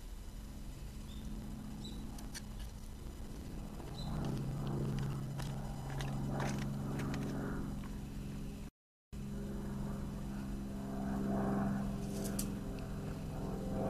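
A man's voice in a drawn-out ritual chant on a steady pitch, beginning about four seconds in and cut briefly near the middle. Faint bird chirps and a few light clicks come before it.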